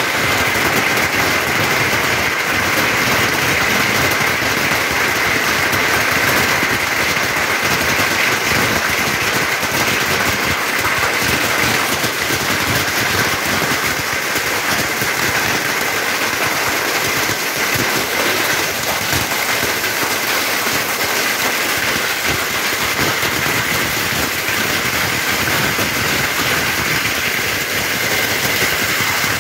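Heavy rain mixed with large hailstones, about an inch across, pelting muddy ground and nearby roofs: a steady, dense hiss of countless small impacts.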